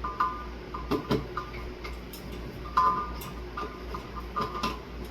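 Irregular clicks and short, squeaky metallic scrapes from hand work on ceiling fan mounting hardware, with the loudest clicks about a second in and near three seconds.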